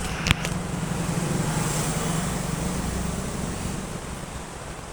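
A motor vehicle's engine hum swelling and fading away, as when a vehicle drives past, with a sharp click just after the start.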